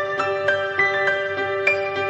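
Background music: a gentle instrumental piece of struck, ringing mallet-like notes, about three a second, over a held steady tone.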